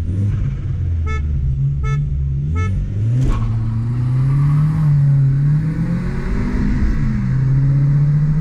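Passat 1.8T's turbocharged four-cylinder engine pulling under acceleration, its pitch climbing through a gear and dropping at an upshift about seven seconds in. Three short beeps come about a second apart near the start, and there is a single click a little after.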